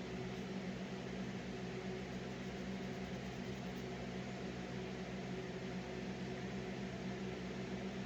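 Steady machine hum with a constant hiss underneath, unchanging throughout.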